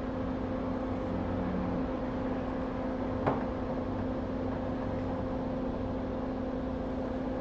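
Steady whirring hum of an electric blower fan on the electronics repair bench, with a low steady tone in it. One short click about three seconds in.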